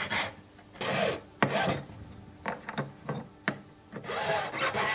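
Knife-edge needle file rasping in a series of short, uneven strokes across the silver claws of a ring setting, filing the claws down.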